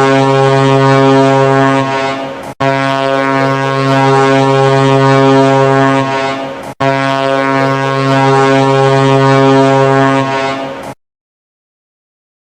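Cruise ship's horn sounding three long steady blasts, each about four seconds, the last one cutting off suddenly.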